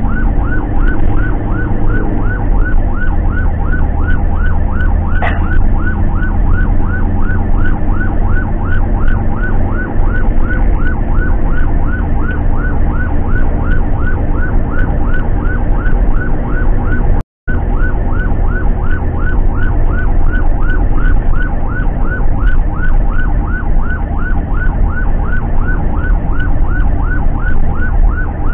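An ambulance's electronic siren wailing in a fast yelp, about three to four sweeps a second, heard from inside the cab of the Toyota ambulance van over its engine and road rumble. The sound cuts out for an instant about two-thirds of the way through.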